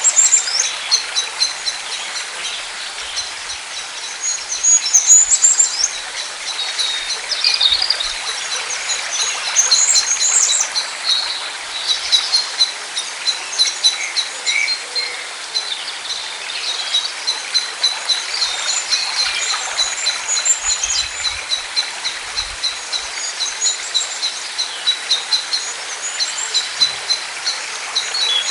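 Birdsong from several birds: high chirps and fast repeated trilling notes that keep overlapping, over a steady hiss of outdoor ambience.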